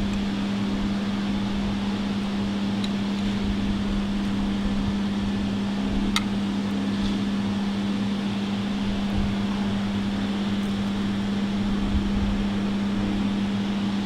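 Steady hum of a kitchen ventilation fan, with a constant low tone under a rushing noise. A few faint light clicks of metal plating tweezers on the plate sound over it.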